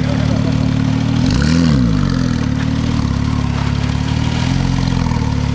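Porsche GT2's twin-turbo flat-six idling through Akrapovic exhausts, with one short rev blip about a second and a half in and a smaller one near the end.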